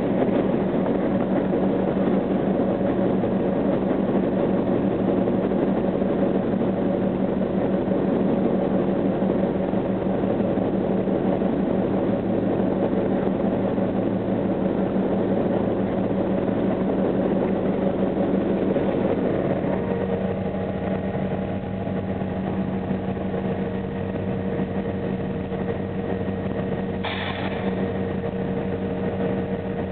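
EMD F7 diesel locomotive's two-stroke engine running under power, heard from inside the cab as the train rolls along. The engine note eases a little about two-thirds through, and a short hiss comes near the end.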